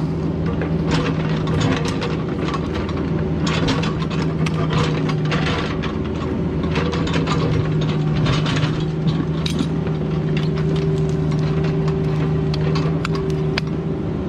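CAT 304 mini excavator's diesel engine running at a steady pitch, with frequent irregular clanks and scrapes of metal working in dirt and stone.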